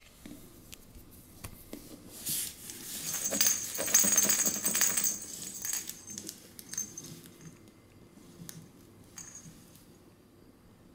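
A hand shuffling a plush toy on a wooden floor: rustling with rapid small clicks and a faint high jingle, loudest from about two to six seconds in, then quieter scattered clicks.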